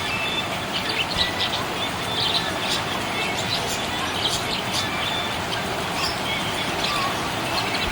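Small pet parrots chirping: many short, high chirps scattered irregularly over a steady background hiss.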